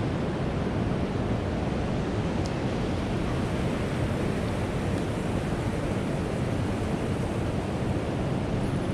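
Steady rushing of river water, an even unbroken roar.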